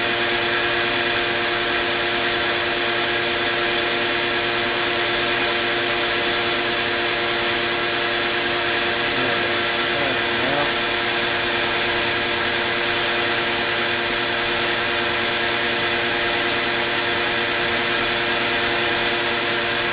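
CNC router spindle running steadily with a constant whine, the OneFinity CNC milling a plastic sheet.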